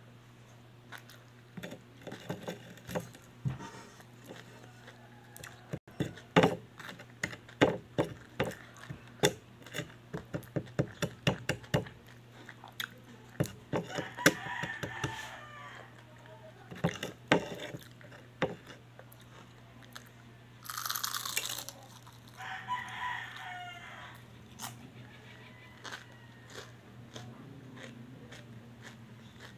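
Close-up crunching and chewing of a fried pork lumpia spring roll: many sharp, crisp bites and chews through the first two-thirds. A rooster crows once in the background about two-thirds of the way through.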